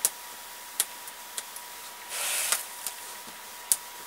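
Hands working double-sided sewing tape onto fabric on a table: several sharp clicks and a short rustle of tape and backing paper about two seconds in.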